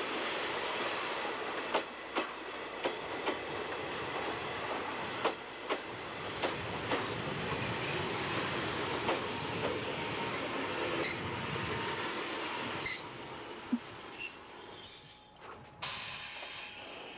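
An old-type JNR electric multiple unit rolls along the platform with a steady rumble, its wheels clicking over the rail joints. Near the end the rumble dies away and short high-pitched squeals come from the wheels as the train slows to a stop.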